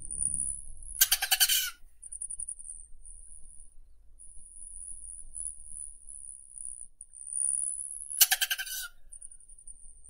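Rufous hummingbird: a thin, very high buzz runs almost throughout with brief breaks, cut across twice by a harsh, pulsed buzzy call, once about a second in and again about eight seconds in.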